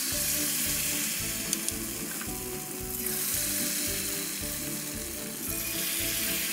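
Fritter batter deep-frying in hot oil in a wok, a steady sizzling hiss as spoonfuls of batter are dropped in and bubble.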